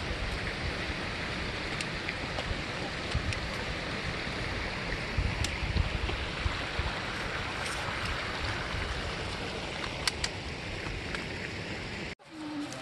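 Steady rush of a river flowing over rock rapids, with low rumbling wind buffeting on the microphone and a few light clicks; it breaks off suddenly near the end.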